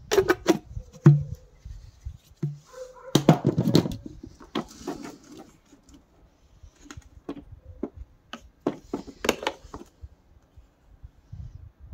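Irregular clicks and knocks, as of the plastic parts of a Samsung vacuum cleaner being handled, with its motor off. The clicks come in small clusters, with the loudest near the start and again around three and nine seconds in.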